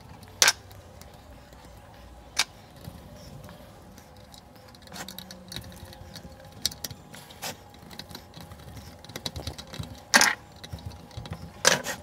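A screwdriver and small metal parts clicking and clinking against the terminals and bracket of a water pump's pressure switch as the wiring is fastened. Sharp knocks come about half a second in, again about two and a half seconds in, and twice near the end, with many light clicks through the second half.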